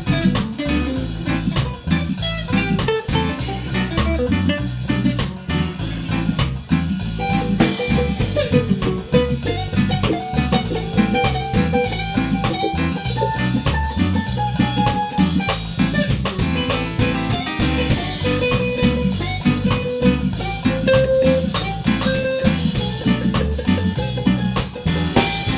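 Reggae band playing an instrumental break without vocals: drum kit and bass keep the groove while a lead melody line, with guitar prominent, plays over it.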